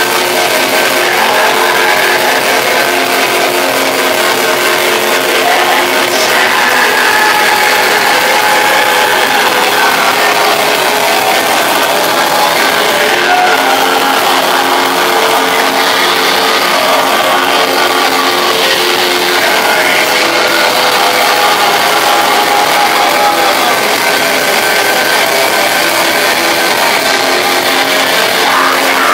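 Black metal band playing live: loud, distorted guitars in a dense, unbroken wall of sound, with little bass.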